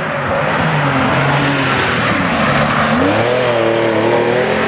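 Rally car engine at high revs as the car slides past through a loose gravel corner, tyres spraying grit. The engine note sags, then climbs sharply about three seconds in as it accelerates out.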